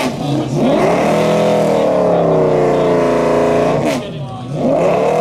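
McLaren F1 GTR Longtail's BMW V12 revving as the car pulls away slowly. The revs climb in the first second, hold high for a few seconds, drop about four seconds in, then climb again near the end.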